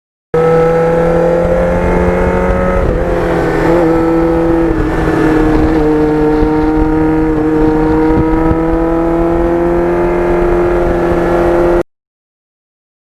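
Kawasaki GPX750R Ninja's inline-four engine running under way at a steady throttle. Its note dips slightly about three seconds in and then climbs slowly. The sound cuts in and out abruptly.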